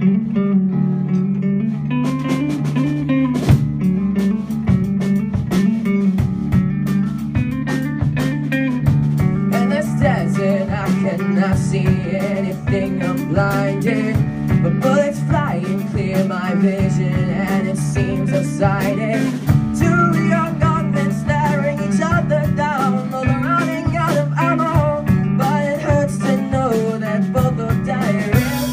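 A rock band playing live: electric guitar and bass guitar, with the drum kit coming in about two seconds in and keeping a steady beat.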